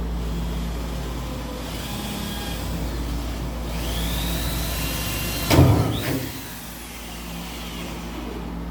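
A power drill drilling out spot welds in the truck cab's sheet steel. Its whine rises and holds, then there is a short loud burst of metal grinding as the bit bites, about five and a half seconds in. A steady low hum runs underneath.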